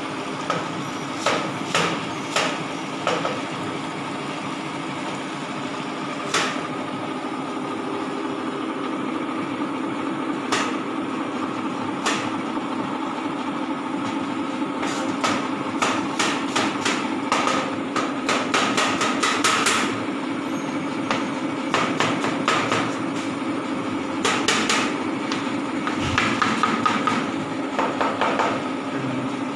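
Kitchen knife chopping a fresh apple on a plastic cutting board: scattered single knocks at first, then quick runs of chops in the second half, over a steady hum.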